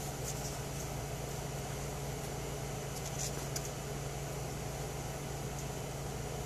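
Steady low hum of a wood-burning stove's heat reclaimer fan, with a few faint clicks as an eyeshadow palette case is handled and opened.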